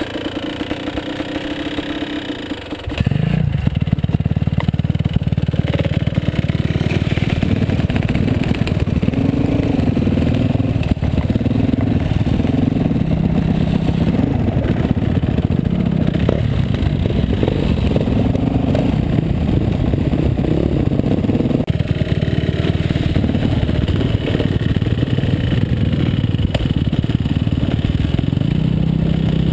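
Dirt bike engine idling, then from about three seconds in pulling away and revving up and down through the gears as the bike rides a gravel trail, heard close from the rider's own bike.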